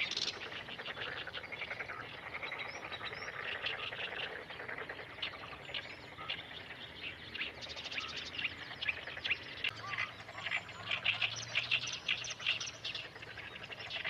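A busy chorus of rapid chattering bird calls, with a livelier, louder spell from about eight to thirteen seconds in.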